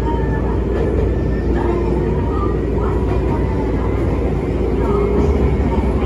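Running noise inside a Nagano Electric Railway 8500 series electric train car under way: a steady low rumble from the wheels and running gear with a constant hum. Short, faint higher tones come and go over it.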